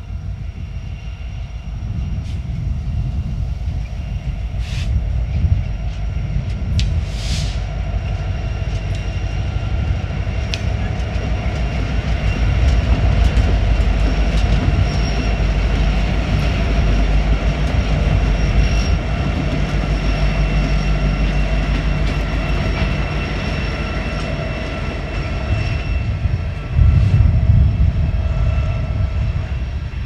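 BNSF diesel-electric freight locomotives rolling slowly past under a speed restriction, engines droning with a steady whine over a heavy low rumble, then the freight cars following. Wind is buffeting the microphone, with a strong gust near the end.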